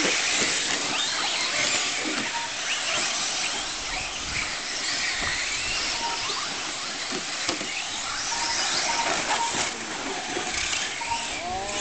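Electric radio-controlled short-course trucks (Traxxas Slash 4x4) racing, their motors whining up and down in pitch with the throttle. Short beeps sound now and then.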